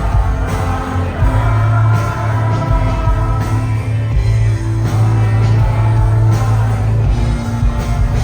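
Live rock band playing the song, with drums, bass and guitars at a steady beat and voices singing over it.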